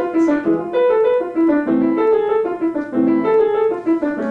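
Piano playing a passage of chords and melody notes, a new note or chord struck every half second or so.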